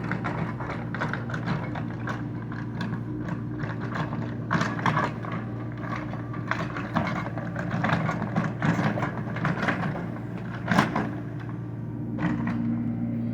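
Kubota mini excavator's engine running steadily, with many short knocks and scrapes of the machine working over its hum and one louder knock near the end.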